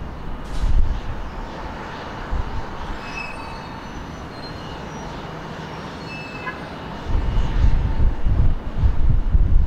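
Embraer E175 airliner's jet engines whining with a steady tone on final approach as it comes in to land. A low rumble grows louder from about seven seconds in as the jet nears the runway.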